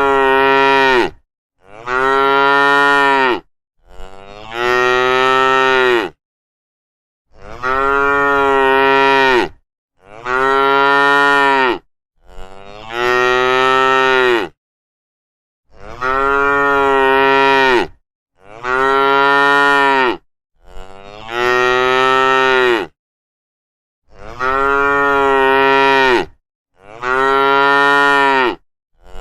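Cows mooing repeatedly, about eleven long moos of roughly two seconds each with short pauses between them.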